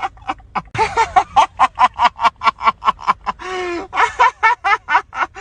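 A high-pitched voice chanting rapid, clipped syllables at about four or five a second, between longer held notes, in a pattern that repeats like a looped meme sound.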